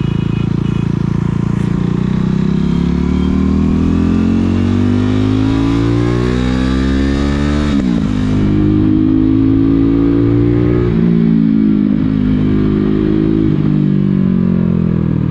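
KTM RC sport bike's single-cylinder engine accelerating under way, its pitch rising steadily for about eight seconds. It drops sharply at an upshift, then runs at a steadier pitch with two small dips later on.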